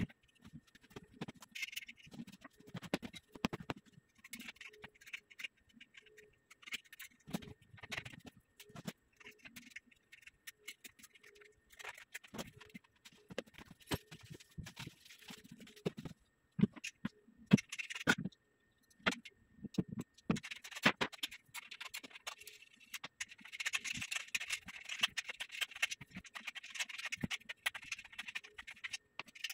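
Scattered clicks, taps and knocks of metal bed-frame parts and bolts being handled and fitted, with a longer stretch of scraping or rustling noise near the end.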